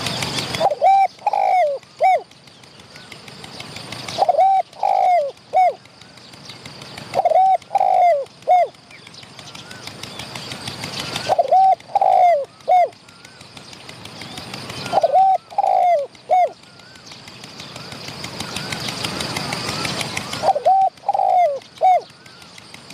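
Spotted dove cooing: six short phrases of about four notes each, a short coo, a longer rolling double coo and a closing coo, repeated every three to four seconds. This is the territorial call that brings a wild male in to challenge the caged decoy.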